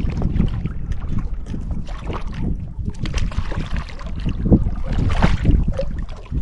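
Wind buffeting the microphone in an uneven low rumble, with small splashes and knocks of choppy water around the boat.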